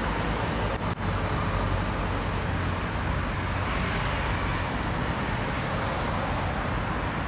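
Steady city road traffic noise, with a brief dropout about a second in.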